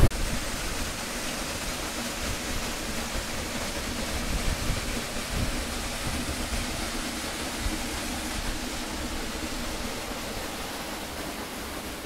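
Rushing water in a mountain waterfall or torrent, a steady, even rush with no breaks.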